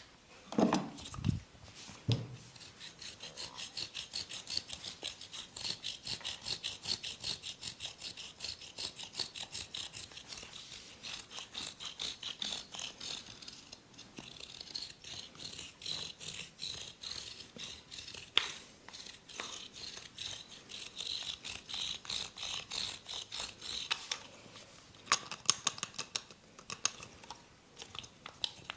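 A masseur's hands rubbing and scratching in quick, even strokes, about three a second. There are a few louder soft thumps in the first two seconds and a short run of sharper clicks near the end.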